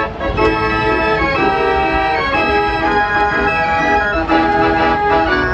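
Fairground organ playing a tune: many sustained pipe notes that change every fraction of a second.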